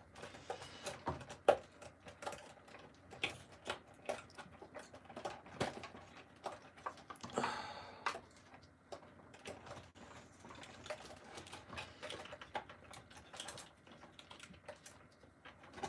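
Toy packaging handled by gloved hands as twist ties are pulled out of a cardboard box and its plastic tray: irregular small clicks, taps and crinkles, with a longer rustle about seven seconds in.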